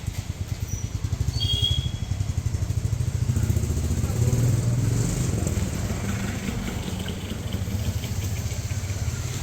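Komatsu PC300-8 excavator's six-cylinder diesel engine running with a rapid, even low pulse. It picks up a little from about a second in to a peak near four seconds, then settles back to a steady run.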